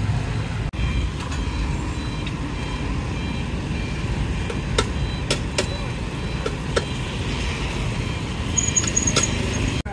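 Passing road traffic of cars and motorbikes: a steady low rumble with a few sharp clicks and ticks.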